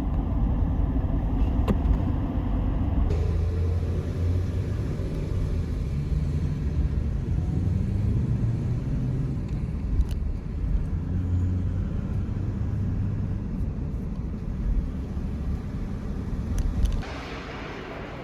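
A vehicle driving on the road: the steady low rumble of engine and road noise, which cuts out about a second before the end, giving way to a quieter hiss.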